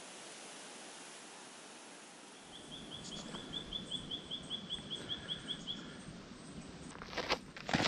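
A soft, steady outdoor breeze in open forest. A small bird gives a run of about sixteen quick, evenly spaced high chirps lasting some three seconds. Footsteps on a dirt trail begin near the end.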